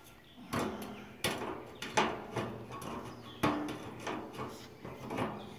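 Square metal tubing of a metal carport frame knocking and scraping as the legs are handled and fitted onto the base rail: a series of sharp clanks at irregular intervals, one ringing briefly.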